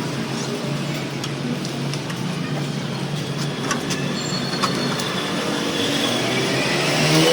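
Pressure washer pump running steadily with a constant low hum and water hiss, a few light clicks, and a rising whine near the end.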